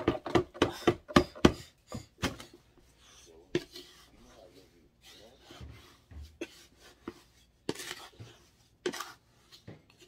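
Cardboard box of powdered laundry detergent being shaken and tapped over a plastic bucket, a quick run of sharp taps in the first second and a half. Then a wooden spoon stirs the powder, scraping and knocking now and then against the plastic bucket.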